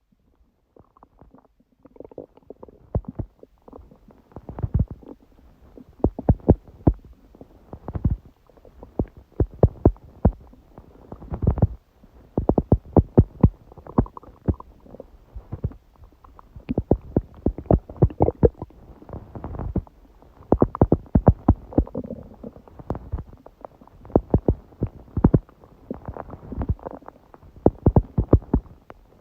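A person's stomach growling and gurgling: a dense run of irregular short pops, squelches and rumbles with no steady rhythm. It is the gut digesting a large udon meal, which the owner puts down to eating wheat gluten after a long break from it.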